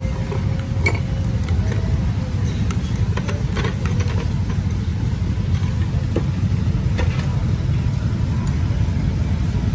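Steady low rumble of street traffic, with a few light clicks from chopsticks on the dishes.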